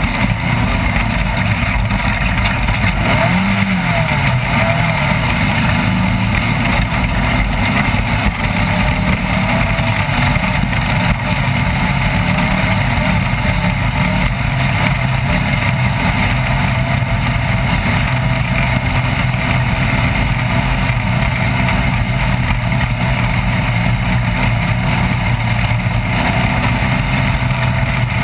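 Off-road race vehicle's engine running hard at a steady speed, with a brief dip and rise in pitch about three to four seconds in.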